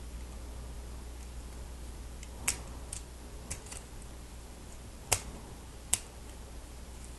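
Plastic Lego Technic parts clicking as they are pressed and snapped together: a handful of sharp clicks, three of them loud, about halfway through and near the end.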